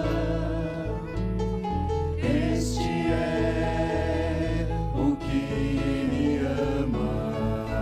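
Christian gospel music: a choir singing held, wordless notes over a sustained bass and instrumental accompaniment.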